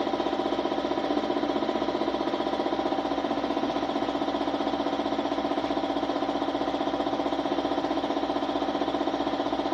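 A motor or engine running steadily, with a fast, even pulse and a humming tone.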